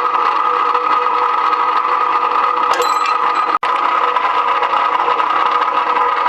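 Electric GQ-series rebar cutting machine running steadily, its motor and drive giving a loud, even hum, with a short sharp sound about three seconds in.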